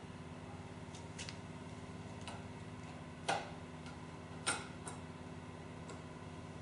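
Scattered light clicks and knocks as the unbolted Yamaha FJR1300 handlebar is lifted by its grip and moved aside onto a cloth, with two sharper knocks about halfway through.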